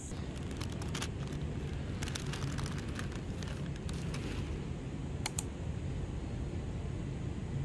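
Paper bakery bag crinkling and rustling as it is handled, a run of small crackles over a steady low hum, followed by two sharp ticks about five seconds in.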